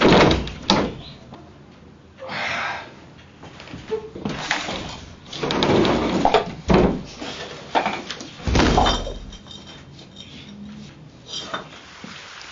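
A run of knocks, bangs and scuffling against a wooden wardrobe, with the loudest bangs near the start and in the second half.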